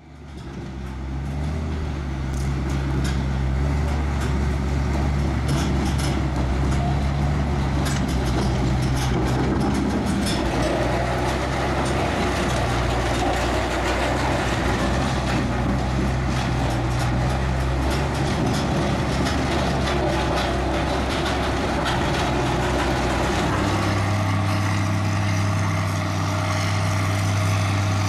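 Caterpillar 816 padfoot soil compactor's diesel engine running steadily, with clicking and rattling over it in the first half. Near the end the engine note shifts and settles into a steadier hum.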